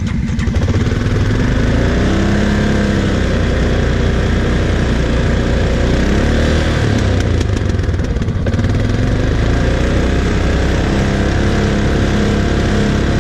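Quad (ATV) engines running close by, idling with pitch rising and falling as the throttle is blipped.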